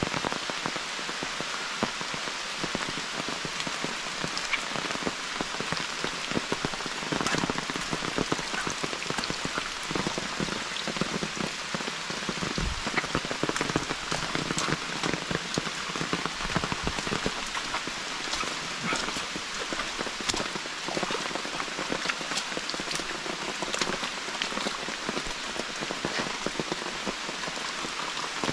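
Steady rain falling, with many separate drops tapping sharply close by.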